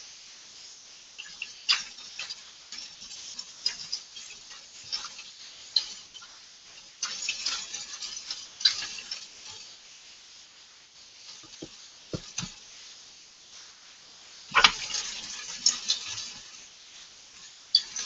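Chuck roast searing in hot oil in an enameled Dutch oven: a sizzling hiss that swells in spurts, with scattered clicks and ticks of utensils against the pot and one sharp knock about two-thirds of the way through.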